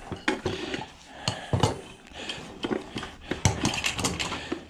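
Irregular clinks, clicks and knocks of small metal and plastic parts being handled as an ice maker is taken apart by hand, with a few louder knocks among them.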